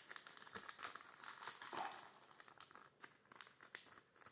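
Thin clear plastic bag crinkling faintly as small cards are handled and slipped into it, in irregular little crackles.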